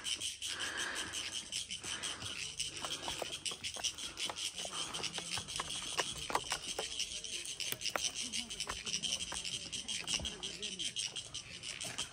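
A steady, high-pitched chorus of insects, with scattered faint clicks.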